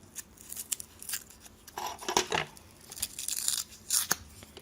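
Plastic blister packaging of a coin-cell battery being torn and prised open: scattered crackles, clicks and short tearing sounds, in irregular bursts.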